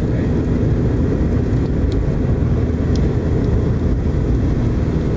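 Steady low road and engine noise inside a car cabin travelling at highway speed.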